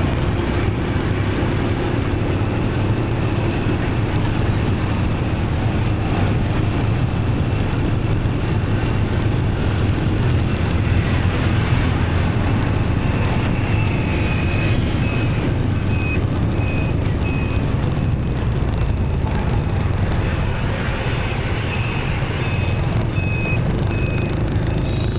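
Motorbike riding through dense city traffic: steady engine and road rumble under the surrounding traffic. From about halfway, an electronic beep repeats a little under twice a second, stops for a few seconds and starts again near the end.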